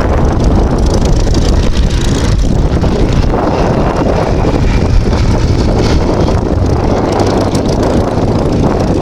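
Hawker Demon biplane's Rolls-Royce Kestrel V12 engine running loud and steady, with wind buffeting the microphone.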